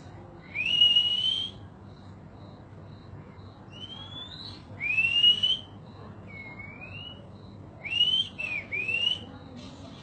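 Caged songbird singing loud, slurred rising whistles, each under a second: one just after the start, another around four to five seconds, a lower one near seven seconds, and a quick run of three near eight to nine seconds.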